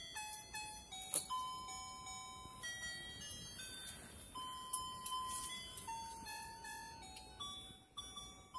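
A simple electronic melody of single held tones stepping up and down in pitch, like a musical chime. There is a sharp click about a second in.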